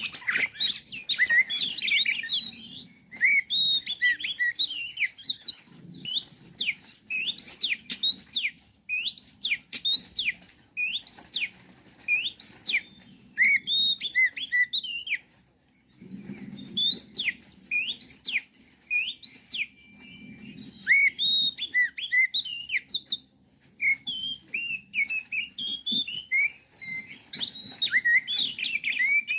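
Oriental magpie-robin (kacer) singing: rapid runs of varied whistled and chirping notes, many sweeping down, broken by a few short pauses.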